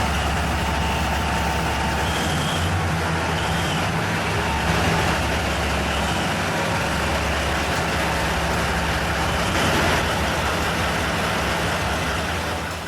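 Heavy machine's engine running steadily, a continuous low drone with mechanical noise over it.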